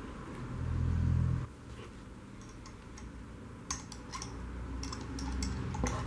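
A low rumble about a second in, then a scatter of light, irregular clicks and knocks from a wooden pulley being fitted onto a steel shaft through a wooden board.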